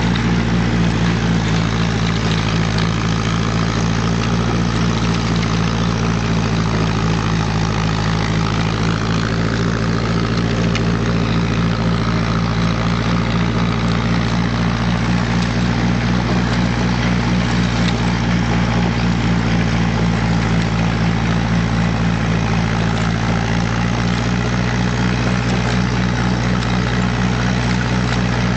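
Ferguson FE35 tractor engine running steadily at an even, unchanging speed.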